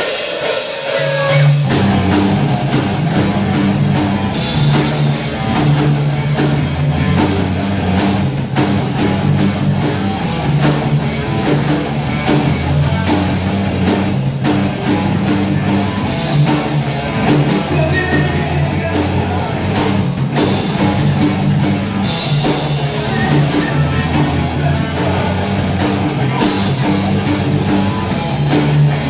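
A rock band playing live on electric bass, electric guitar and drum kit. The full band comes in together at the start, with sustained low bass notes under constant cymbal wash.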